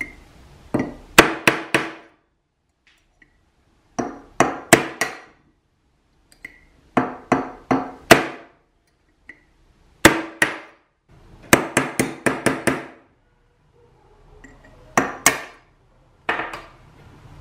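Ball-peen hammer striking a punch set inside a 47RE transmission's steel direct clutch drum, driving out the old bushing. The strikes come in about seven quick bursts of three to five sharp, ringing metallic hits, with short pauses between bursts.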